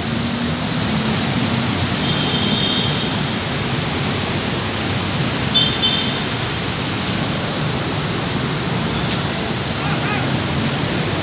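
Steady hiss of heavy rain and wet street noise on a body-worn camera's microphone, with two brief high chirps about two and five and a half seconds in.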